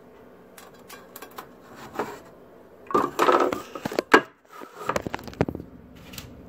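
Handling noise on a phone's microphone as it is moved and set up: scattered clicks and knocks, a louder rustling scrape about three seconds in, and a sharp knock just after four seconds.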